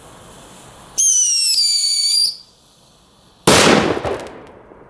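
Homemade flash-powder firecracker with a whistle pre-burner going off: a shrill whistle about a second in, falling slightly in pitch and cutting off after just over a second, then a short pause and one loud bang that dies away over about a second.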